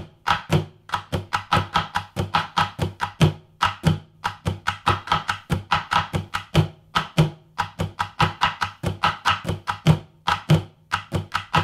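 Two-part bucket-drumming groove played with wooden drumsticks on upturned plastic buckets: a fast, steady, repeating rhythm of sharp strikes, lower thuds mixed with higher clicky hits.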